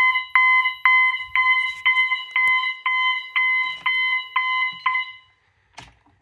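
FCI pulsation fire alarm signal sounding, a buzzy tone pulsing about twice a second with each pulse starting sharply and fading. It cuts off about five seconds in as it is silenced, followed by a couple of faint clicks.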